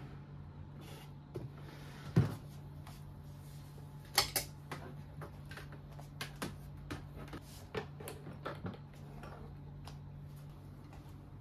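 Irregular knocks and clicks of furniture and household objects being handled, with a louder thump about two seconds in, over a steady low hum.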